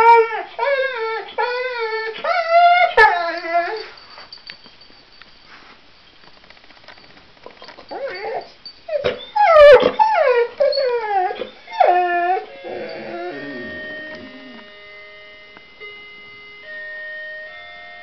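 English Bull Terrier howling in long, wavering notes that slide up and down in pitch, in two spells with a quiet gap between. Near the end an electronic door-chime tune of plain steady notes plays.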